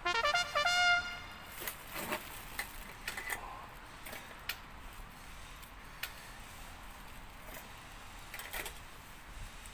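A short jingle of quick stepped notes in the first second. After it come scattered crackles and light metal clinks from a small wood-burning camp stove and the wire grill net being handled over it.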